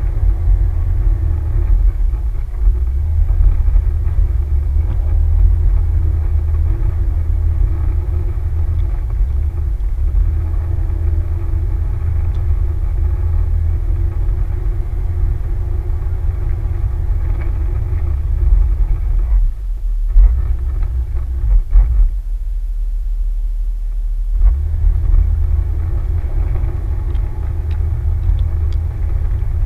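Off-road vehicle running on the move, a heavy low rumble with a steady engine note over it. The engine note drops away twice in the latter part while the rumble carries on.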